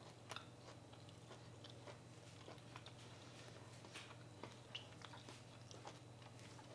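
Faint chewing of a crispy fried chicken-and-potato ring: soft, scattered crunches over near silence.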